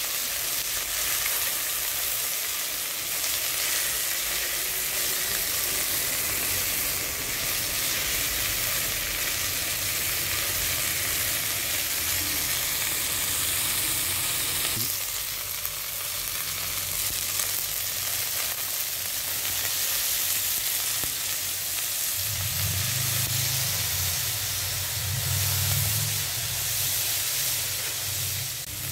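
Chicken pieces sizzling steadily as they sear in an enameled cast-iron pot. A low rumble joins in about two-thirds of the way through.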